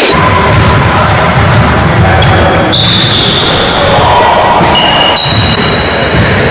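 Basketball game on a hardwood gym floor: the ball bouncing and sneakers squeaking at different pitches, echoing in the large gym.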